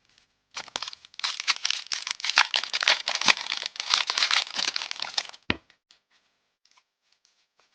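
Foil Pokémon booster pack wrapper crinkling and tearing as it is opened, for about five seconds, followed by a single soft knock.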